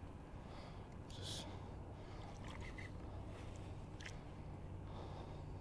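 Faint, steady low hum with a short breath about a second in and a few soft clicks later on.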